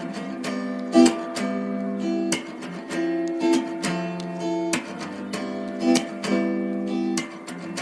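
Acoustic guitar music: strummed chords and plucked notes ringing on, with a sharp attack on each strum.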